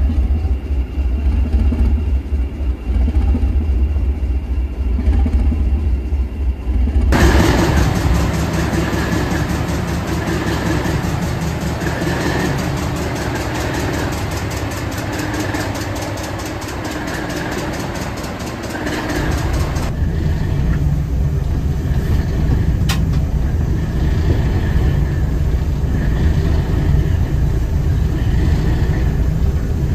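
English Electric 4SRKT four-cylinder diesel engine of a Class 450 'Thumper' DEMU running with a deep low throb. About seven seconds in it turns much louder and fuller, with an even rhythmic beat, as heard close up in the engine room. Near the end it settles to a steadier low drone, with a single sharp click.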